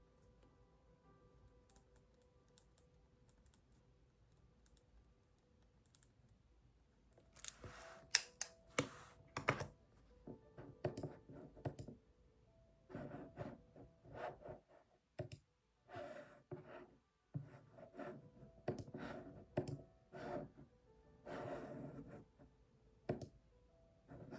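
Typing on a computer keyboard in quick runs of keystrokes with short pauses, starting about seven seconds in, over faint background music.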